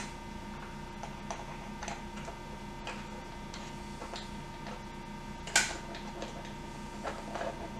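Light, irregular clicks and ticks of a hand tool working loose the set screws of a pinball flipper assembly, with one sharper click about five and a half seconds in, over a steady hum.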